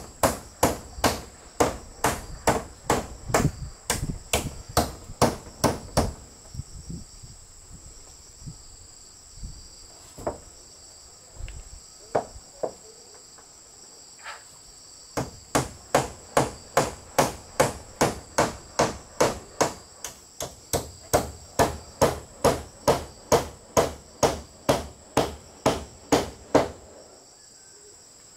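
Hammer blows in a steady run, about two or three a second, stopping for several seconds midway with only a few single knocks, then starting again. Insects keep up a steady high-pitched drone behind them.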